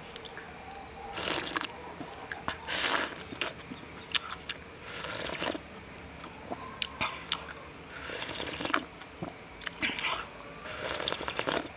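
A person slurping sour-soup broth straight from the rim of a bowl in a series of short, noisy sips with pauses between.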